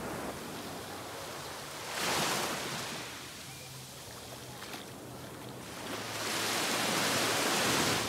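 Small waves breaking and washing up a sandy beach, a steady rush with one surge about two seconds in and a longer, louder surge near the end.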